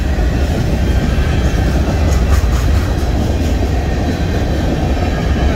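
Freight cars of a Union Pacific grain train rolling past at close range: a steady, loud low rumble of steel wheels on the rails.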